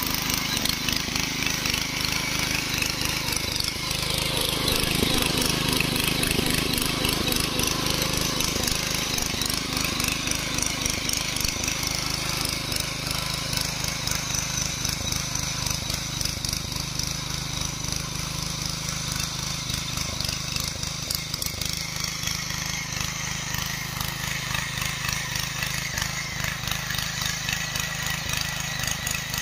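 Mini power tiller's petrol engine running steadily under load with a rapid pulsing beat as its rotary tines dig through soil. It grows a little quieter in the last several seconds as the machine moves away.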